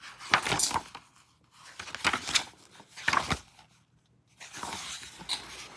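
Pages of a hardcover cookbook being flipped: about four short papery rustles with quiet gaps between.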